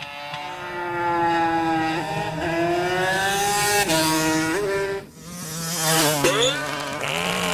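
Engine-like revving whine that jumps up and down in pitch in steps, with a brief drop-out about five seconds in followed by a quick rising and falling sweep.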